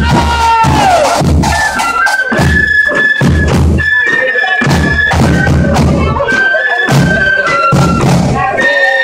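Marching flute band playing a tune: a line of small wooden transverse flutes in unison over a steady beat of bass drum and snare drums.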